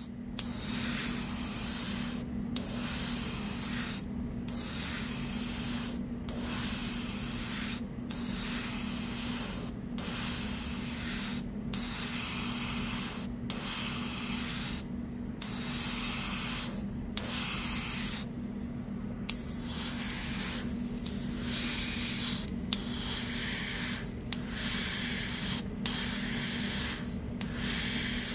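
Airbrush spraying paint: a steady hiss in bursts of about two seconds, broken by short pauses, with a steady low hum underneath.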